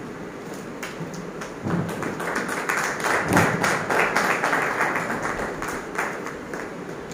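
A small group clapping. It starts with scattered claps, fills out into steady applause about two seconds in, and thins to a few claps near the end.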